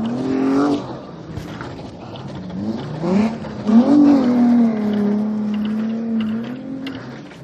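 Off-road vehicle engine revving hard under load while climbing a sand dune. The revs rise sharply, drop, rise again, then are held high for a couple of seconds before easing off near the end.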